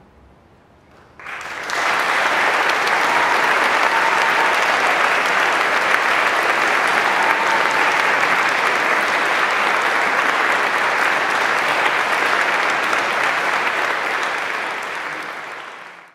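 Audience applauding: after about a second of quiet the clapping starts suddenly, holds steady, and fades away near the end.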